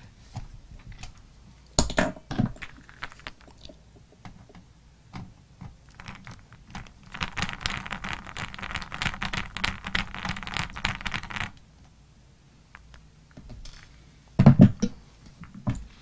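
A screwdriver backing a screw out of a plastic laptop base, a Dell Inspiron M5010: a dense run of fine rapid clicks for about four seconds. Scattered taps and knocks come before it, and there is a louder knock near the end.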